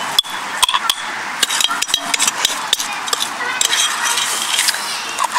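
Spoon scraping and clicking against a small glass jar while soft coconut-oil toothpaste is spooned in, with many irregular short taps over a steady hiss.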